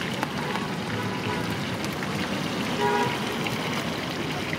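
Hot oil sizzling steadily as battered brinjal bajji deep-fry in a large kadai. About three seconds in comes a brief toot, like a horn.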